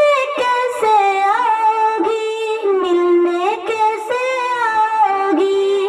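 Solo female voice singing a long, drawn-out melodic line without clear words, holding notes and sliding between them.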